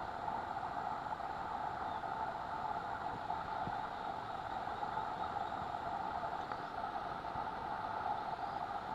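Steady droning chorus of rainforest insects, with a faint thin high whine that stops about three-quarters of the way through.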